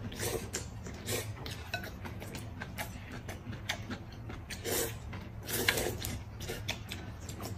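Two people eating noodle soup with chopsticks: noodles slurped from porcelain bowls, with many small clicks and taps of chopsticks on the bowls. Longer slurps come about five and six seconds in.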